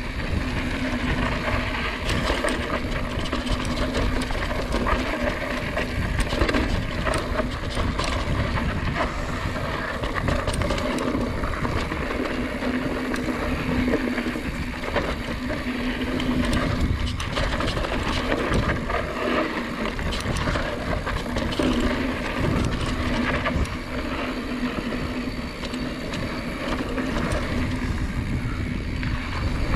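A mountain bike rolling fast over a dirt trail, with wind rushing over the microphone. Under the wind are tyre noise, a steady low hum, and frequent small rattles and knocks from the bike over bumps.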